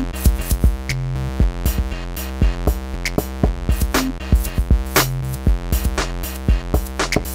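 Electronic background music with a steady drum-machine beat and held synth notes.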